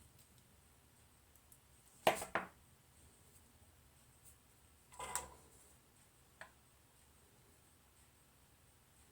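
Light clatter of small tools or parts being handled on a workbench: a short clattering knock about two seconds in, a smaller one about five seconds in, and a faint tick soon after, with quiet between.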